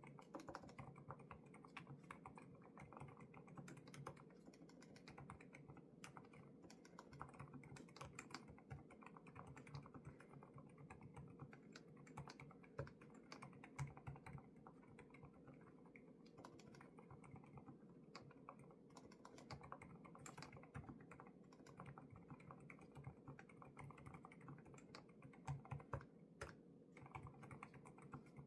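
Continuous typing on a Lofree Flow2 low-profile mechanical keyboard fitted with Kailh Void switches: a quick, steady run of soft key clicks with a few louder key strikes now and then.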